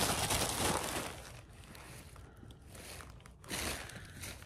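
Packaging crinkling as it is handled, loudest in the first second, dying down, then a brief rustle again about three and a half seconds in.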